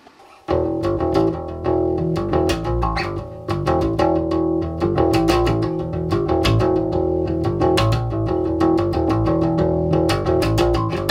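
Electric bass guitar, a Precision Bass, playing a riff of quick plucked notes that starts about half a second in. It is heard through an M-Audio BX5a studio monitor just repaired with new capacitors, and the low end comes through full again.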